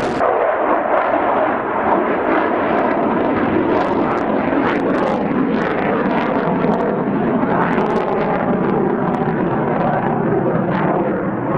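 Fighter jet engines heard from the ground, a loud, steady noise that does not let up.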